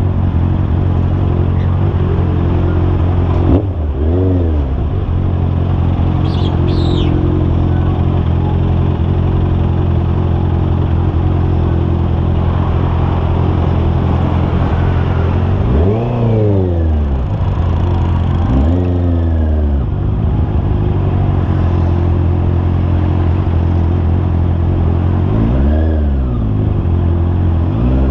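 Honda CB650R's inline-four engine running steadily under way. It briefly revs up and drops back four times, about four seconds in, around sixteen and nineteen seconds in, and near the end.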